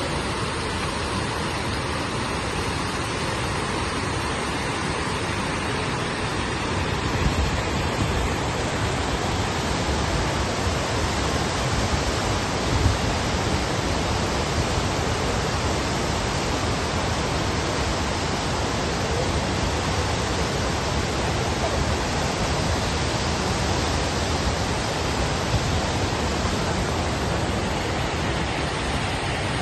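Waterfall rushing: a steady, dense rush of falling water that grows slightly louder about seven seconds in.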